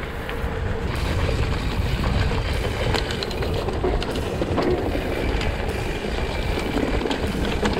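Mountain bike riding over a dirt trail: steady rumbling tyre and wind noise on the microphone, with a few short clicks and rattles from the bike.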